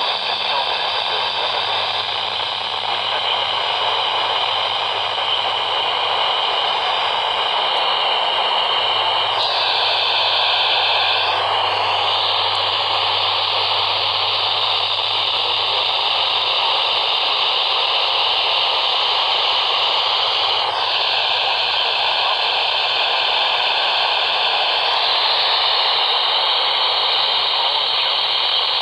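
Steady radio static hiss from a receiver, with no voice or alert tones, its colour shifting slightly a few times.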